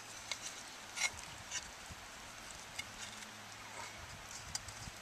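Faint handling noise as a dog-proof raccoon trap and its chain are worked over dry leaves: scattered small clicks and rustles, the clearest about a second in, over a low steady hum.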